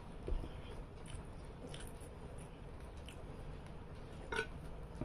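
Eating rice and fish curry by hand: fingers squishing and mixing the rice on the plate, with soft chewing and a few small clicks, the sharpest about four seconds in.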